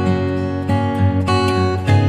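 Background music led by acoustic guitar, with a new note or chord every half second or so.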